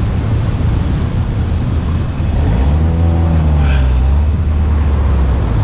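Road traffic on the street, with a motor vehicle passing close from about two seconds in, its engine a low drone that rises and falls in pitch as it goes by.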